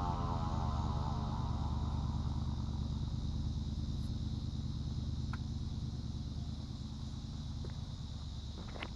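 Federal Signal Thunderbolt siren coasting down after its wail has ended: a low steady mechanical rumble that slowly fades. A thin steady high tone runs over it, and a few faint clicks come near the end.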